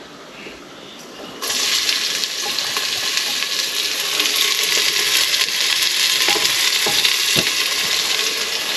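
Chopped onions frying in hot ghee in a pressure cooker, starting with a sudden loud sizzle about a second and a half in that holds steady. A few soft knocks sound near the end.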